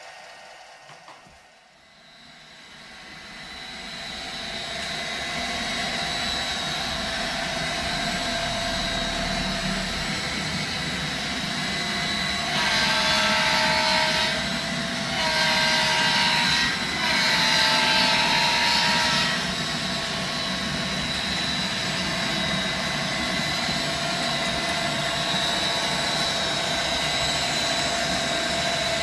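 HO-scale model train running with a steady engine-like drone that swells up over the first few seconds. Near the middle come three louder two-tone horn blasts of about two seconds each.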